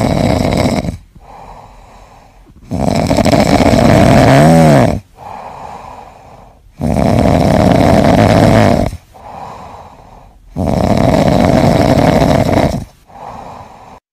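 A sleeping orange tabby kitten snoring: four loud snores about four seconds apart, with quieter breaths between them. The second snore carries a brief whistling tone.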